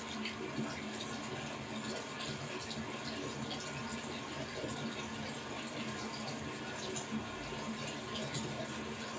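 Water running steadily, with many small bubbling ticks over the rush.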